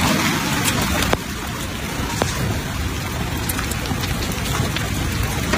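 Hail and rain pelting down: a dense, steady hiss with many sharp ticks of hailstones striking hard surfaces, one louder tick about a second in.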